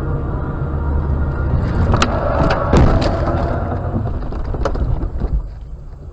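A car crash heard from inside the car: road and engine noise, then a run of hard bangs and crunching about two to three seconds in. Another knock comes near five seconds, after which the noise dies down.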